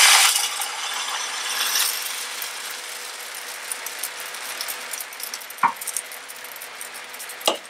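Wholemeal pancake batter sizzling as it is poured onto a hot oiled frying pan: a loud hiss at first that settles into a steady, fainter sizzle as the pancake spreads and sets.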